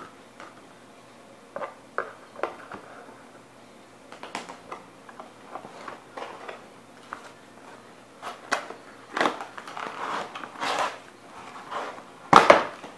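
Handling of a cardboard doll box and its plastic packaging: scattered taps, clicks and short rustles, growing busier in the second half, with the loudest crinkling rustle near the end as a doll outfit is pulled free.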